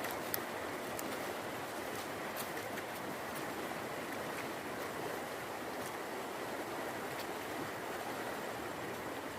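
Steady rushing of flowing river water, the current running high after a flood, with a few faint clicks over it.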